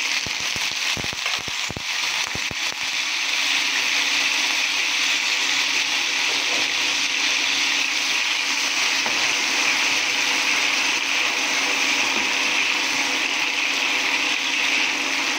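Mushroom pieces sizzling as they fry in hot oil in a nonstick pan, a steady hiss that carries on while they are stirred. A few sharp clicks in the first three seconds as the pieces go into the pan.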